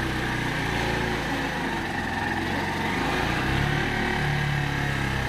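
Kawasaki Barako 175's single-cylinder four-stroke engine running steadily at idle, just started.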